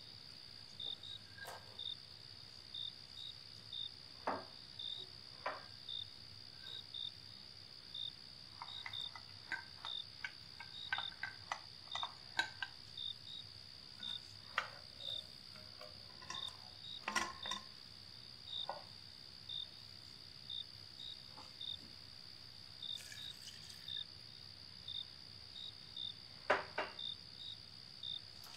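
Scattered clicks and knocks of a wooden spoon stirring diced vegetables in a steel cooking pot. Under them runs a steady high-pitched whine with short chirps at fairly even spacing.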